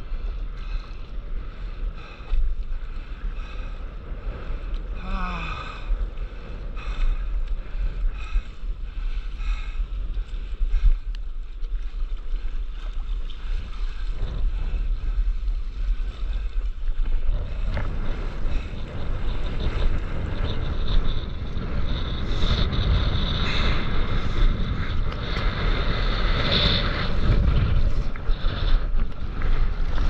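Wind on the microphone and sea water sloshing around a stand-up paddleboard; a little past halfway through it grows into a louder, steady rush of water as the board runs through the water with spray at its nose.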